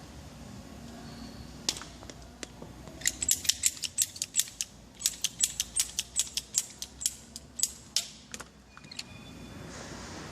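PVC pipe being cut with a hand pipe cutter: a few separate clicks, then a quick run of sharp clicks, about five a second, from about three to eight seconds in.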